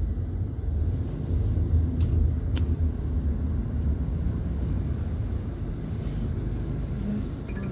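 Steady low engine and road rumble heard from inside a car's cabin as it drives down a ramp in a multi-storey car park, with a few faint clicks around two to four seconds in.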